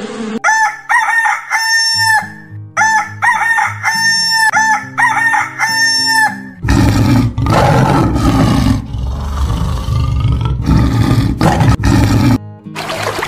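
Rooster crowing repeatedly, each crow a rising, held and falling call. After about six and a half seconds a loud, rough, low rumbling sound takes over for about six seconds.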